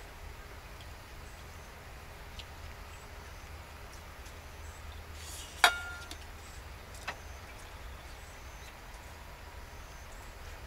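Chopsticks clinking against a bowl while eating: one sharp clink with a short ringing tone about halfway through, and a few fainter taps, over a steady low background rumble.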